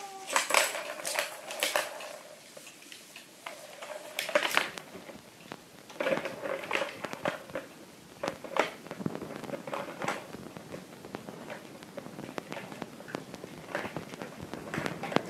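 Plastic balls rolling and rattling around the circular tracks of a tiered cat ball-track toy, with irregular clicks and knocks as kittens bat them and paw at the plastic.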